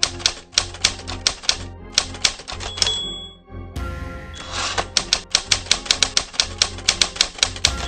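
Typewriter sound effect: two quick runs of keystrokes, each ending in a short ding of the carriage-return bell, about three seconds in and again near the end.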